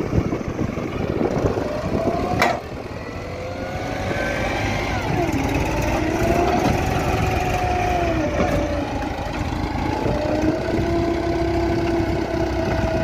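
Diesel tractor engines working hard under heavy load, engine speed rising and falling, as a tractor stuck in soft sand with a loaded trolley is pulled out by a second tractor. A sharp click about two and a half seconds in.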